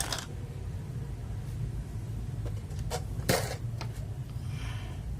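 A few sharp plastic clicks and knocks from mechanical keyboard switches being handled and fitted into a hot-swap test board, the loudest pair about three seconds in, over a steady low hum.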